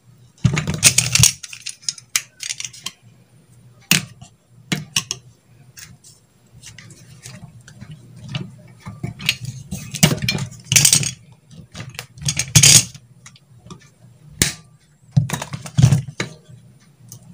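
Tools and small parts being handled on a soldering bench: irregular clinks, taps and short rattles as things are picked up and set down.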